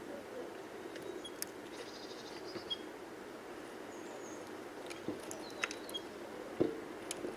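Small birds giving a few short high chirps and a brief buzzy call, with several sharp taps, over a steady low background hum.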